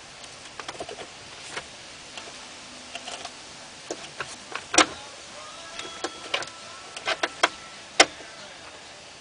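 Scattered clicks, taps and knocks of a plastic alignment tab and door parts being pushed and worked into a car's door skin. The sharpest knocks come near the middle and about eight seconds in.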